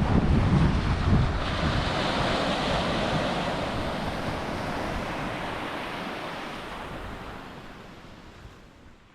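Surf washing and wind, with wind buffeting the microphone in the first second or so, the whole slowly fading out near the end.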